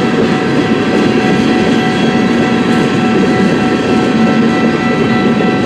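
Freight cars of a long freight train rolling steadily past at close range: a continuous loud rumble of wheels on rail, with thin steady ringing tones over it.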